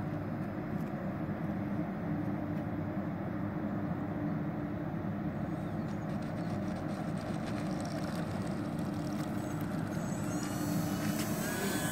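Twin electric ducted fans of an RC Cessna Citation II model jet running steadily with a rushing sound on its landing approach and touchdown. Near the end a higher whine rises in pitch.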